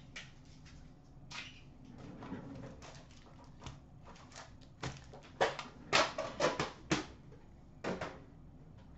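A metal trading-card tin being emptied: its foil packs are tipped out onto a glass counter and the tin is handled and set aside. Scattered light rustling, then a burst of sharp clacks and knocks about five to seven seconds in, and one more near the end.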